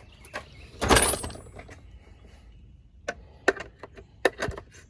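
Metal sockets and tools clattering while a socket is picked from a socket set: one loud, ringing metallic clatter about a second in, then several sharp clicks and knocks near the end.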